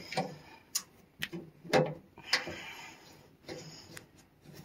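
Scattered light clicks and taps, irregularly spaced, of metal AN fuel-line fittings being handled and threaded together by hand.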